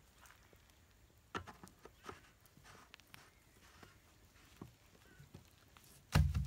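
Light scattered clicks and taps from a plastic jerrycan being handled as its cap is worked open, then one loud, low thump near the end.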